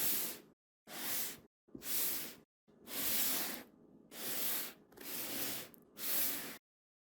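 Seven short bursts of hissing, each about half a second to a second long, cut off sharply with silence between them.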